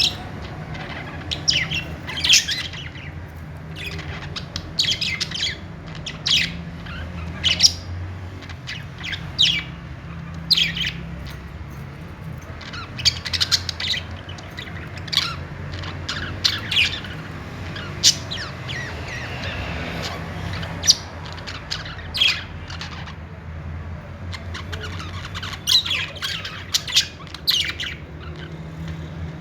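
Budgerigars chirping and squawking: a busy run of short, sharp, irregular calls, several a second at times, over a steady low hum.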